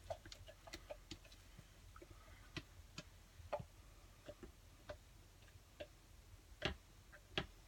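Faint, unevenly spaced ticks and clicks, one to three a second, over quiet room tone.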